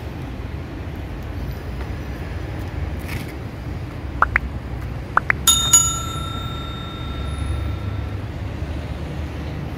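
Subscribe-button animation sound effect: two quick clicks about four and five seconds in, then a bell ding that rings on for about two and a half seconds, over a steady low rumble of road traffic.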